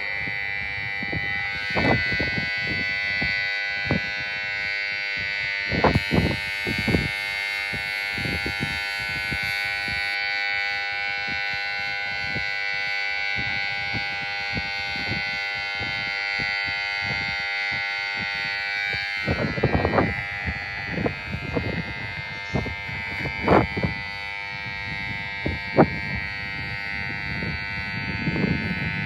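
Railway platform emergency stop alarm: an electric buzzer sounding continuously at one steady pitch, the warning that a platform emergency stop button has been pressed. Scattered short knocks and clicks sound under it.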